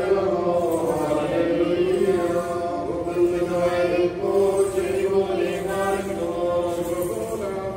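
Voices chanting a sung prayer in slow, long-held lines.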